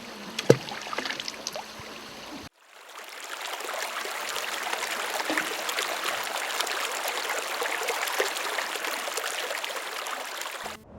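A stream of flowing water, a steady rush and trickle. A short quieter stretch with a sharp click about half a second in comes first, and the water swells in after an abrupt cut about two and a half seconds in.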